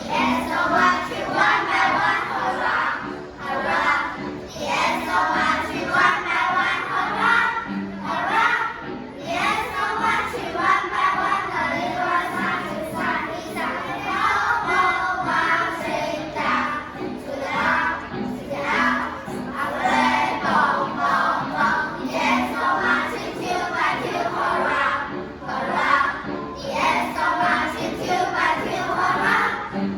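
A class of children singing an English song together in chorus.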